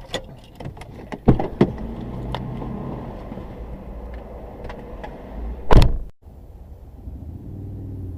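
Car cabin with the engine running, a few sharp clicks and knocks, then one loud car-door thump about six seconds in.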